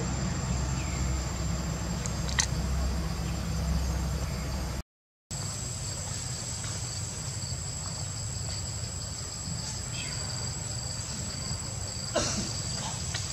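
Insects in the forest making a steady, continuous high-pitched drone over a low hum, cut off for a split second about five seconds in. A sharp click comes a couple of seconds in and a short crackle near the end.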